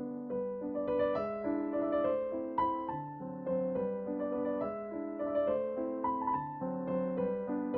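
Background piano music: a gentle keyboard melody in steady, evenly paced notes over held chords.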